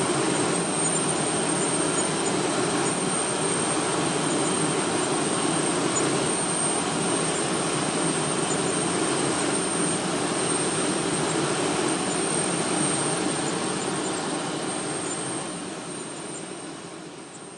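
F-16 fighter jet's engine running steadily, a dense rush with a thin high turbine whine over it, fading out over the last few seconds.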